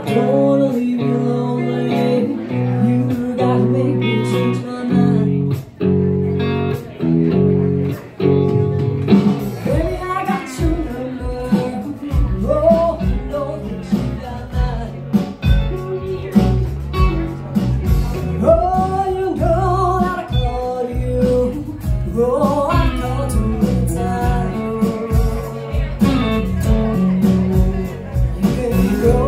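A live bar band plays with electric, acoustic and bass guitars. The first nine seconds or so are guitar chords alone. Then a woman's lead vocal comes in over the band with a steady beat of percussion.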